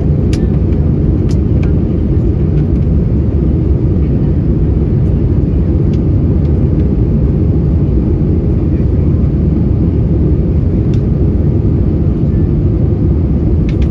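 Steady low roar inside the cabin of an Airbus A320-232 in flight: engine and airflow noise heard from a window seat over the wing, with a faint steady hum and a few faint clicks. The aircraft's IAE V2500 engines are part of the roar.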